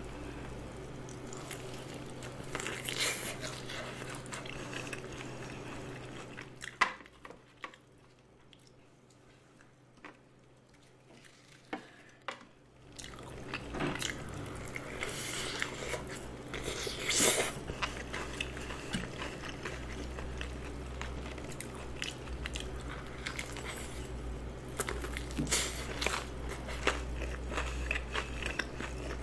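A fried chicken drumstick in seasoned powder coating being bitten and chewed close to the microphone: repeated bites and chewing, with a quieter pause about a third of the way in.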